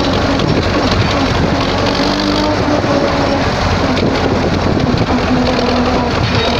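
MTZ-80 tractor's four-cylinder diesel engine running steadily while driving, a constant loud drone with no change in pitch.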